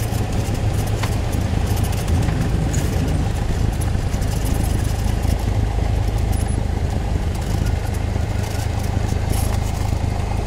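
Single-engine light aircraft's piston engine and propeller droning steadily as the plane taxis, heard from inside the cockpit.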